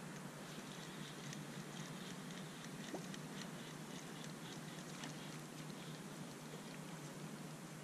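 Fixed-spool fishing reel being wound, giving faint, irregular light ticking over a steady background hiss.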